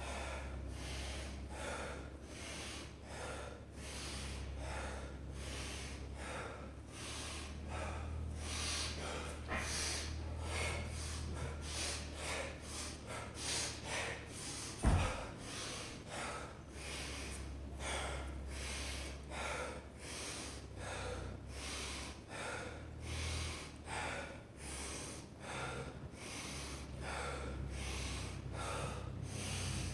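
A man breathing hard from exertion in the middle of a deadlift and chin-up workout, with loud, quick breaths in and out about once a second. A single thump lands about halfway through.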